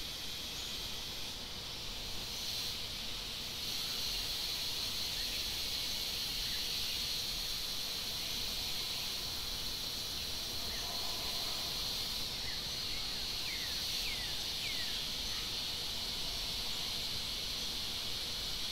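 Steady, high-pitched drone of an insect chorus, with a few faint short chirps about two-thirds of the way through.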